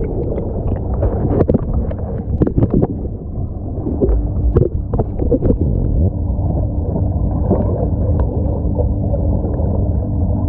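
Underwater sound in a swimming pool, picked up by a submerged action camera: a muffled low rumble of water with scattered clicks and bubbly pops in the first half, settling into a steadier muffled hum.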